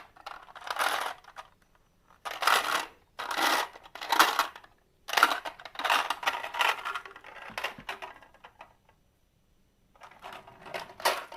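Marbles rolling and clattering down a wooden marble run track, in several rattling runs with short pauses between them.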